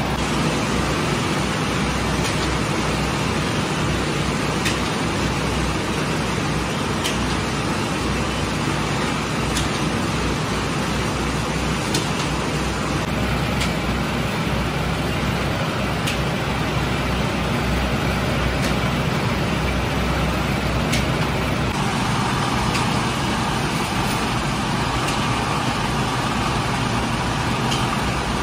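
Steady running noise of flatbread bakery machinery: the oven and its rotating steel bread turntable, with a low rumble and faint sharp ticks every couple of seconds. The mix of the noise shifts slightly about 22 seconds in.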